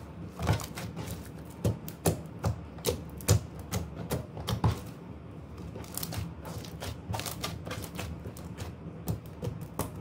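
Fluffy slime being stretched, squeezed and pressed by hand, giving irregular sharp clicks and pops, loudest and most frequent in the first half.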